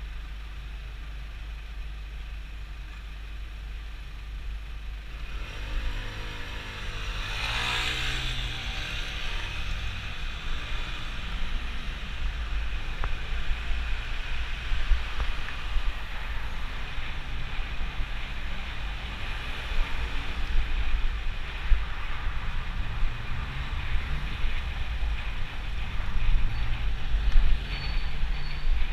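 Wind buffeting a bicycle-mounted camera's microphone, with tyre and street-traffic noise, quieter while the bike waits and growing louder and rougher once it gets moving; a louder surge of noise about eight seconds in.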